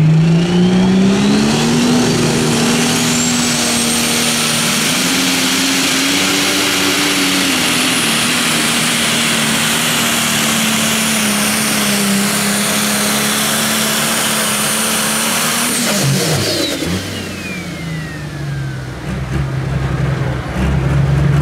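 Pro Stock pulling tractor's turbocharged diesel engine revving up as the pull starts and running flat out, its turbocharger whine climbing to a high, steady pitch. About sixteen seconds in the engine drops off at the end of the pull and the turbo whine falls away as it spools down. The engine then settles to a steady run.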